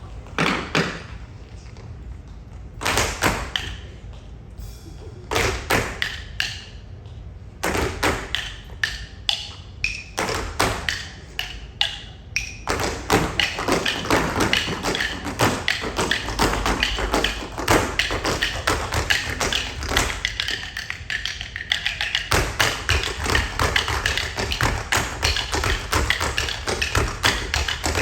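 Tap dancing: tap shoes striking the stage in quick rhythmic phrases, broken by short pauses at first, then a dense, continuous run of rapid taps with heavier thumps from about halfway through.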